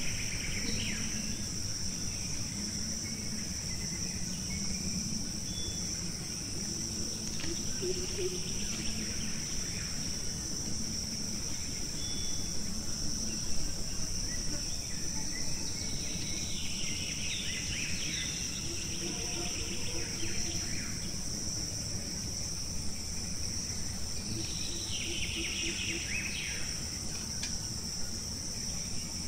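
Steady high-pitched drone of forest insects, with two bursts of bird calls, one past the middle and one near the end.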